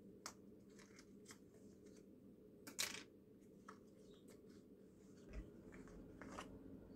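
Faint clicks and crinkles of a small lip-oil package being worked open by hand with a small tool, with one sharper snap about three seconds in.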